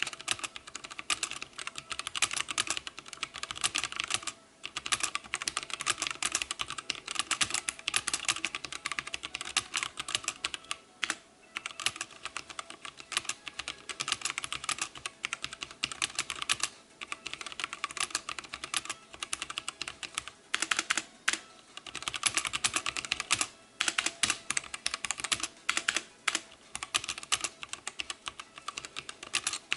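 Fast, continuous typing on a wireless tenkeyless mechanical keyboard: rapid clacking keystrokes, broken by a few brief pauses.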